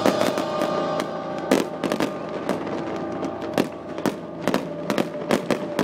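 Fireworks exploding in a dozen or so sharp bangs at irregular intervals, some coming in quick clusters.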